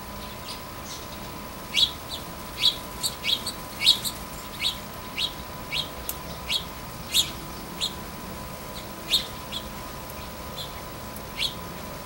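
Small songbird giving a run of short, sharp chirps, about one or two a second at an uneven pace, starting about two seconds in and stopping shortly before the end.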